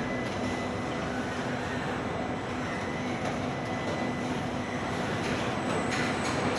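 Steady mechanical noise of car-factory machinery, a constant hum and rumble, with a few short clicks and hisses near the end.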